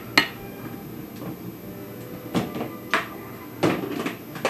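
A series of sharp knocks and clatters as kitchen containers and utensils are handled and set down, about six in all, the loudest just after the start.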